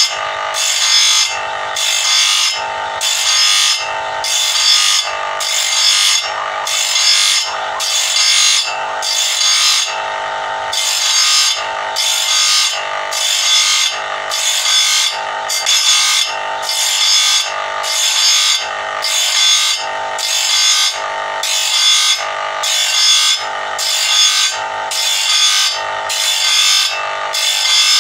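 Electric grinder's abrasive wheel grinding the teeth of a long mill saw blade, a rasping grind that swells and eases in a steady rhythm about one and a half times a second as the blade is fed against the wheel tooth by tooth, over the motor's continuous hum.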